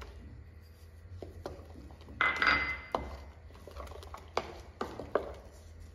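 Wooden spoon stirring thick corn batter in a glass bowl: soft scraping and several light knocks of the spoon against the glass, the loudest scrape a little over two seconds in.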